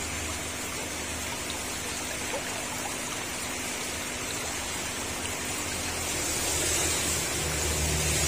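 Steady trickling and splashing of water flowing in a paludarium, with a low hum that fades after the start and comes back near the end.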